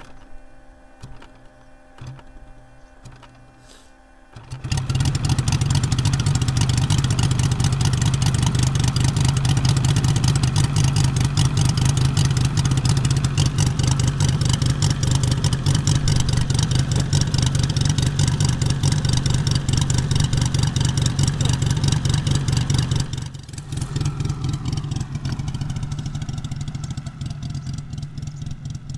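Moki 250 five-cylinder radial engine in a large RC Yak-11 model catching about four and a half seconds in and running loud and steady at high revs. About 23 seconds in it is throttled back, and the note slides down to a lower, quieter idle.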